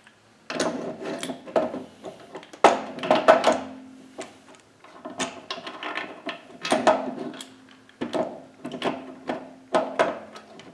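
Mini lathe tailstock being set onto the lathe bed and slid along the ways: a run of irregular metal clunks and scrapes, a few of them ringing briefly.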